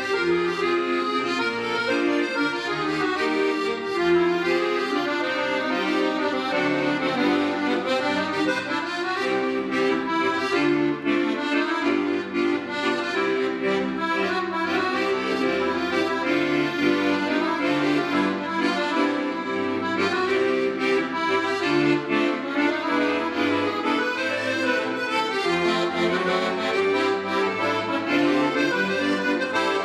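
Solo piano accordion playing a continuous piece: held chords in the middle register, with a changing stream of melody notes above.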